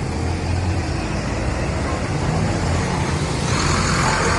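Bus engine running with a steady low hum amid road traffic noise, with a louder rush of noise joining about three and a half seconds in.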